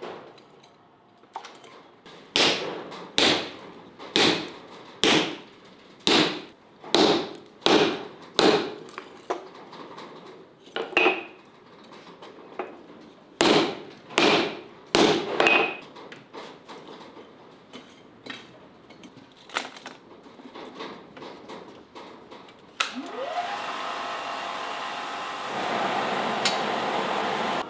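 Hand hammer striking red-hot bearing steel on an anvil: about eight blows roughly a second apart, then four more after a short pause. Near the end a forge blower starts with a rising whine, then settles into a steady loud rush of air into the coal fire.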